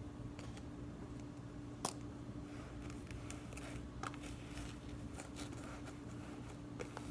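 Slime being kneaded and pressed by hand: faint soft squishes and small clicks, with one sharper click about two seconds in, over a steady low hum.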